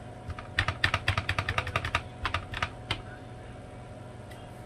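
Quick run of light pats and taps, about eight a second, from gloved hands patting raw tilapia fillets dry with paper towels on the counter. The patting stops about three seconds in.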